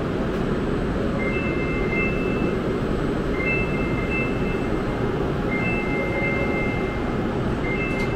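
Platform screen door warning beeps: a two-tone electronic alert repeating about every two seconds while the doors wait to close, over the steady hum of a Shinkansen train standing at the platform.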